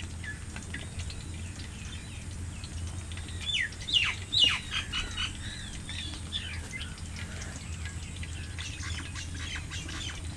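Birds chirping and calling: many short, sharp, falling notes, with a louder burst of calls about four seconds in. A steady low hum runs underneath.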